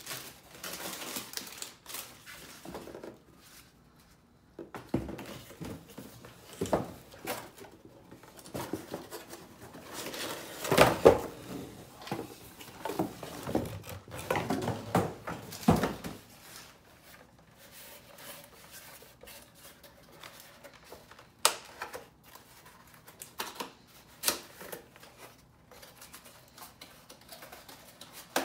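Cardboard packaging being handled: the box and its cardboard inserts scraping, rustling and knocking in irregular bursts. The busiest, loudest handling comes in the first half, followed by quieter stretches with a few sharp knocks.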